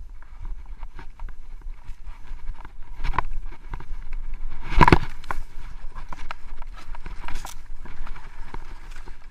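Skis running through deep powder snow, a continuous rough hiss and scrape with many small knocks as the skier turns through the trees, and a loud thump about five seconds in.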